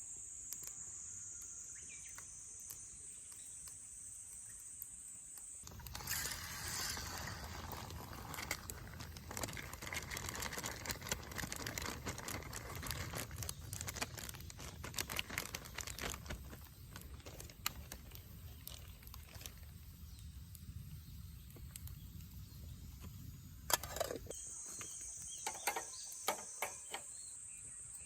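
A steady high insect chorus. For most of the middle it gives way to a noisier stretch of small crackles and clicks over a low rumble, then the chorus returns near the end.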